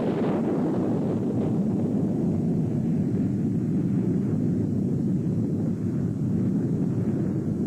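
A steady low rumble with no tones in it: a sound effect standing for the asteroid's impact.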